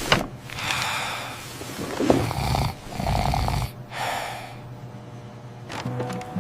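Snoring of a sleeping animated character: several slow, drawn-out breaths in and out, some with a low rumble.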